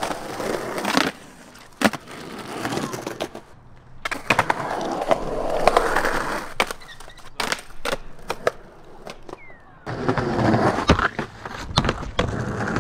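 Skateboard wheels rolling over rough concrete in several runs with short pauses between them, broken by sharp clacks of the board.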